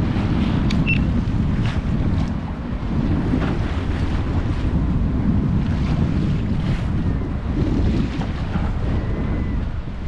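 Wind buffeting the microphone on the deck of a sailboat under way, a steady gusty rumble over the wash of the sea.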